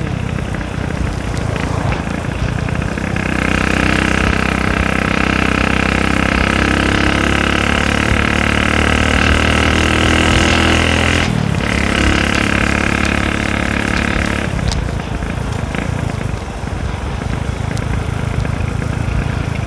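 Motorcycle engine under way, holding one steady pitch for several seconds. It drops out for a moment about 11 seconds in, picks up again at the same pitch, then eases off at about 15 seconds. A steady rush of wind and road noise sits underneath.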